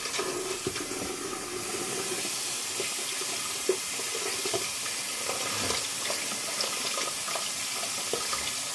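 Tap water running steadily into a bathroom sink, splashing as something is rinsed under it, with one short knock about four seconds in.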